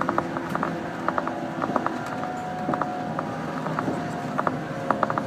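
Running noise inside a 115 series electric train carriage, with a steady faint hum under a stream of irregular clicks and creaks from the rattling car body.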